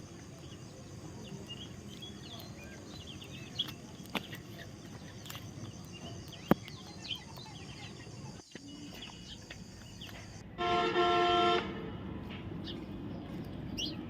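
A vehicle horn honks once, a steady tone of about a second, roughly two-thirds of the way in; it is the loudest sound. Faint short bird chirps and a few sharp clicks come and go over a background hum.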